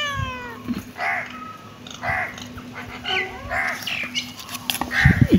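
Kittens giving several short, squeaky mews about a second apart, with a few low bumps near the end.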